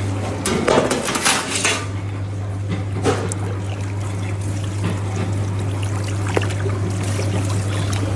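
Steady low hum with trickling, splashing liquid and scattered sharp clicks over it, busiest in the first two seconds.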